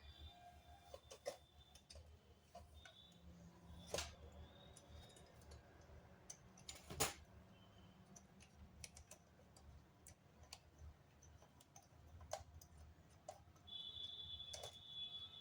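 Near-silent room with scattered faint clicks and taps, the loudest about seven seconds in. A faint high steady tone comes back near the end.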